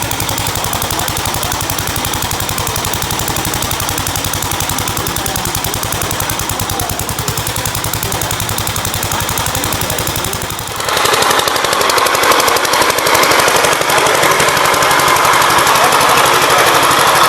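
1955 Gravely Imperial Model D walk-behind tractor's single-cylinder engine running with a rapid, even firing beat. It gets abruptly louder about eleven seconds in.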